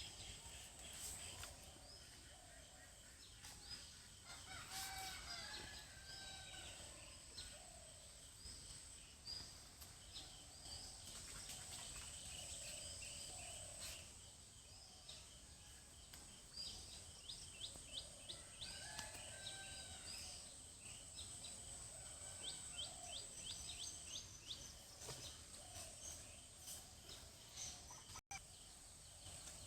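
Faint outdoor farmyard sound: a rooster crowing twice, with small birds chirping over a steady high whine.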